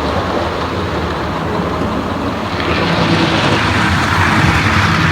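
Hornby OO-gauge model train running on its track: a steady motor whirr with wheels rattling over the rails, getting louder about two and a half seconds in.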